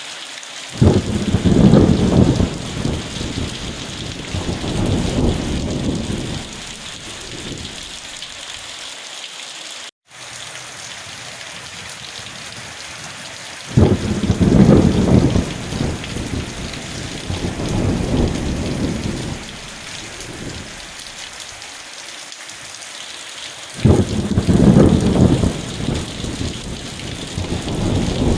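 Steady rain with three rolls of thunder, each breaking in suddenly and rumbling away over several seconds. The sound drops out for an instant about ten seconds in.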